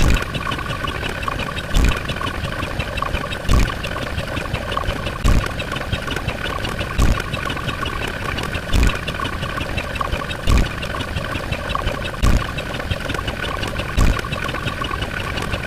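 Mechanical sound effect: a steady engine-like hum with a fine rapid pulse, and a heavy low thump repeating evenly about every second and three-quarters.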